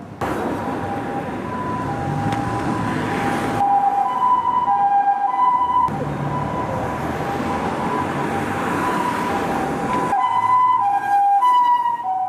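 Japanese ambulance two-tone siren, a high and a lower tone alternating over and over (the 'pee-poh' pattern), with street traffic noise underneath. The background noise changes abruptly a few times.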